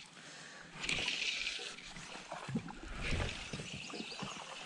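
Water sloshing and lapping against a small boat on a river, with hissing patches and a few light knocks from the fly rod and reel being handled.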